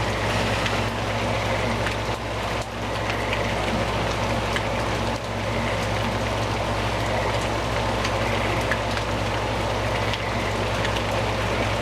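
Heavy rain falling steadily: a constant hiss with faint scattered drop ticks.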